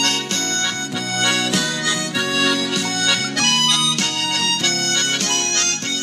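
Harmonica playing a melody, with the notes changing several times a second and often two or more notes sounding together.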